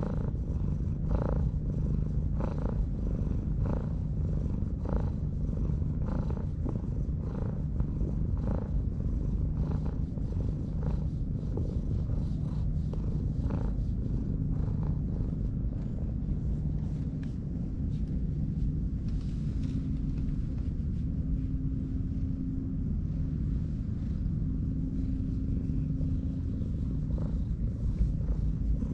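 Cat purring steadily while being stroked, a low continuous rumble. For the first half it pulses evenly about once a second.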